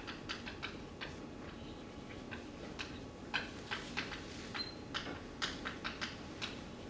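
Chalk writing on a blackboard: short, irregular taps and scratchy strokes as letters are written.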